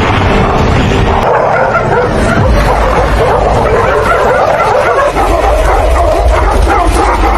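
Several dogs barking and yipping as they run and play.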